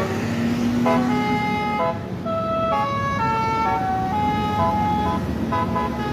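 A basuri melody air horn on a DAMRI bus plays a slow tune of held notes that step up and down in pitch, over the low rumble of the bus.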